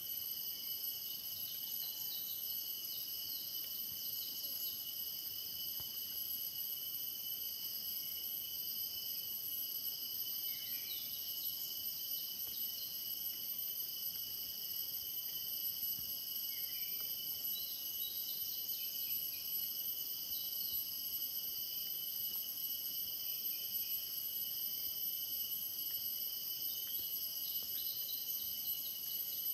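Steady chorus of insects trilling at several high pitches without a break, with faint short chirps now and then.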